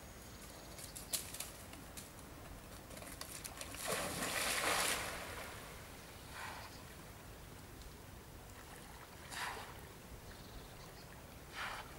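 Water splashing in a small river as an animal swims: one longer splash about four seconds in, then short, softer splashes every two to three seconds.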